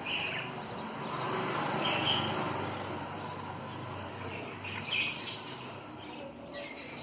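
Budgerigars giving short, scattered chirps over a steady background rustle.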